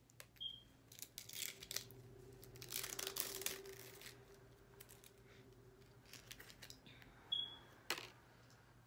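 Hands working small packaging: plastic and paper crinkling and tearing, loudest around three seconds in, with scattered small clicks and two brief high squeaks.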